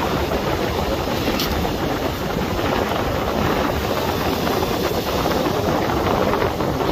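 Wind buffeting the microphone in a steady, loud rumbling rush.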